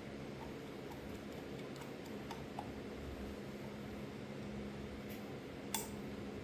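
A few faint, light clicks of small metal parts being handled, then one sharper click near the end, over a steady low hum.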